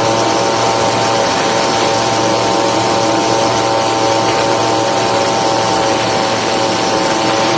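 Storch STOL aircraft's engine and propeller running at takeoff power, a loud steady drone with an even hiss of rushing air, as the plane lifts off and climbs out low.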